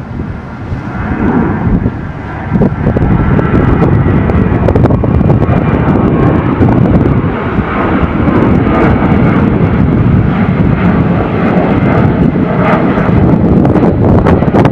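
Jet airliner engines at takeoff power: a loud, steady rushing noise that swells about two and a half seconds in and then holds.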